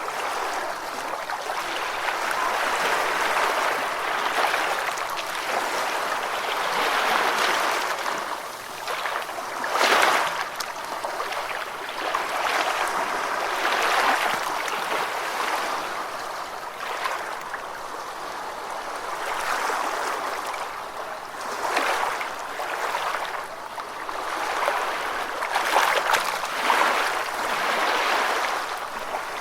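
Gentle ocean waves washing onto a sandy beach: a continuous wash that swells and eases every few seconds, with a few sharper splashes as waves break.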